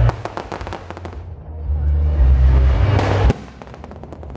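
Fireworks going off close by: a heavy boom followed by a rapid run of crackling, a low rumble, then another sharp bang about three seconds in and more crackling after it.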